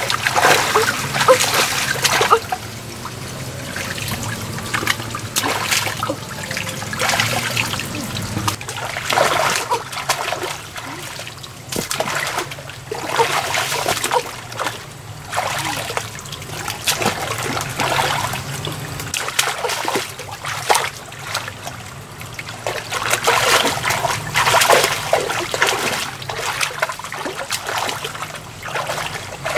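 Shallow muddy water splashing and sloshing in irregular surges as hands grope through it, over a steady trickle of water pouring from a pump's discharge hose.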